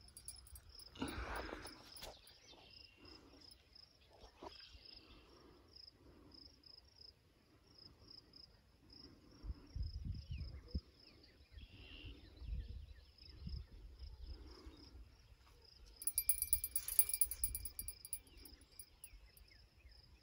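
An insect chirping in a steady, even pulse of high notes, several a second, over intermittent low wind rumble on the microphone. About 16 seconds in comes a brief, louder high-pitched burst.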